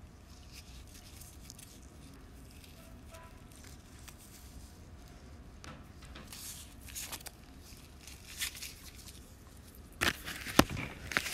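Faint room noise with scattered rustling, then a cluster of sharp clicks and rustles near the end, like paper and desk items being handled.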